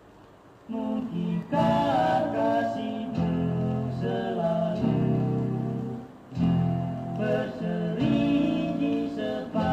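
Vinyl LP playing on a turntable: faint groove hiss, then under a second in a guitar-band pop song starts with plucked and strummed guitars.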